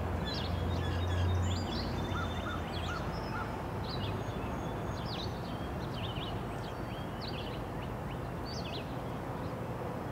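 Songbirds chirping and trilling, with many short calls, over a low hum from a diesel freight locomotive approaching in the distance. The hum is strongest in the first couple of seconds and then fades.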